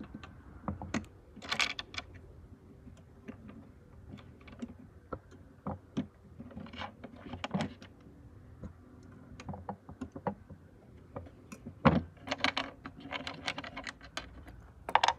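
Small copper coins being worked in between the coils of a Mercedes R107 SL door-check spring, making irregular small metallic clicks and clinks as coins meet the steel coils and each other. The sharpest clicks come about twelve seconds in and again near the end.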